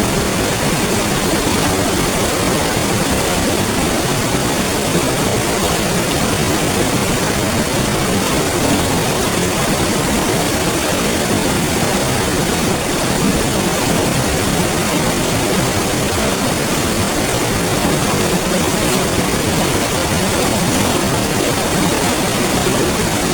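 River water flowing over rocks: a steady, even rush.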